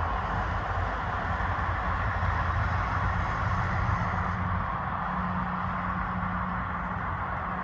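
Steady low vehicle-engine drone with a constant hiss of traffic noise, heard from inside a vehicle; the engine hum deepens slightly about halfway through.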